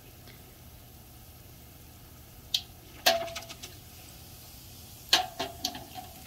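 Kitchen utensils clinking: several sharp knocks of metal against a pot or bowl, two of them leaving a short ringing tone, over a steady low hum.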